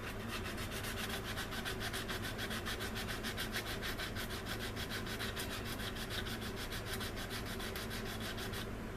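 Sanding stick rubbed quickly back and forth over the styrene plastic of a model-kit wing joint, in fast, even strokes, several a second, sanding the seam down so it needs less filler.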